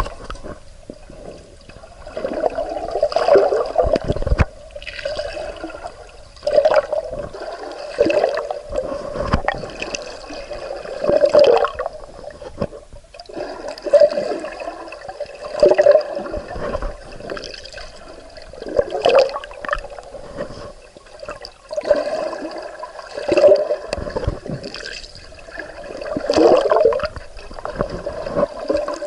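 Water gurgling and sloshing around a swimmer's camera in surges that come back every three to four seconds.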